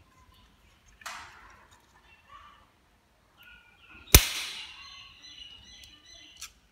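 Sharp metallic clicks from an aluminium pot heating on a portable gas stove. A lighter click comes about a second in, and a much louder one about four seconds in rings on briefly.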